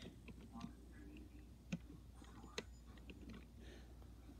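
Near-quiet room tone with a few faint clicks of plastic Lego pieces being pressed and handled on the model, the two clearest near the middle.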